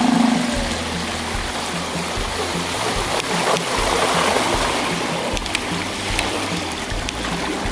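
The small petrol outboard's steady running note dies away within the first second, leaving water washing and splashing around the inflatable hull as the boat glides into the shallows. Background music with a steady beat runs underneath.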